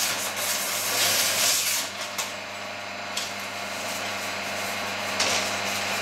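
Electric meat slicer running with a steady motor hum while its circular blade rasps against a large paper envelope pushed into it, loudest in the first two seconds, failing to cut it cleanly. Paper rustles briefly near the end.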